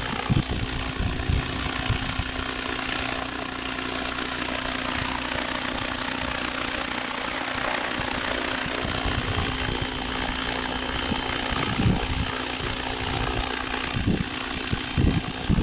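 Radio-controlled helicopter running steadily, with a constant high whine and a steady lower hum from the rotor, and wind buffeting the microphone in irregular gusts.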